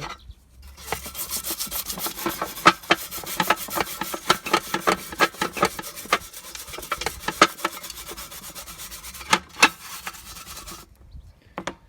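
Nylon brush scrubbing a degreaser-coated Weber barbecue in quick back-and-forth strokes, loosening the dirt. The scrubbing stops about eleven seconds in.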